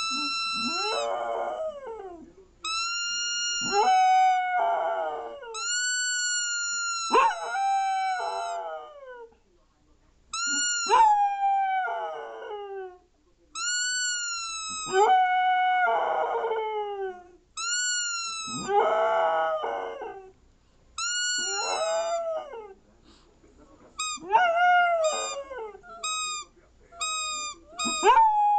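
A shrill whistle blown again and again in long toots, each answered by a dog howling along. Near the end the whistle comes in a run of short, quick toots, with the dog still howling.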